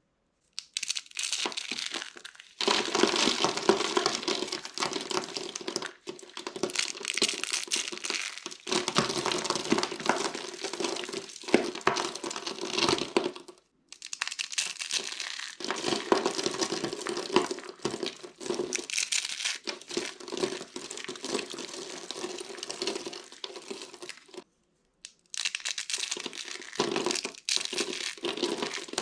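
Dry soap roses and soap cubes being crushed by hand, a dense crunching and crackling as the hard soap crumbles, in long runs with brief pauses twice.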